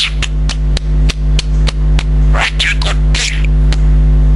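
Budgerigar chattering: a run of sharp rapid clicks with two brief high warbling chirps in the middle. A loud steady low hum runs under it.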